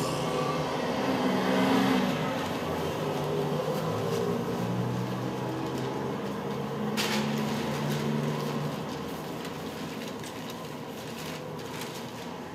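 Low droning stage soundscape: held low tones that shift in pitch every few seconds, with a short rushing noise about seven seconds in.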